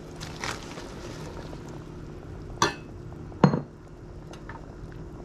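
Chopped Swiss chard being tipped into a stainless-steel pot of boiling water, with two sharp clinks of something knocking against the pot, about two and a half and three and a half seconds in, the second one louder. A steady low hum runs underneath.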